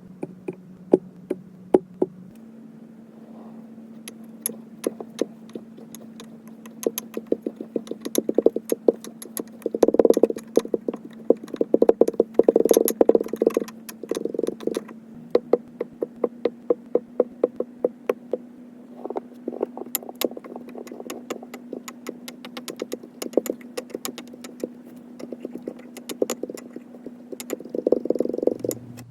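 Kinetic sand being dropped and squished: a run of sharp crackling clicks that packs densest in the middle and again near the end, over a steady low hum.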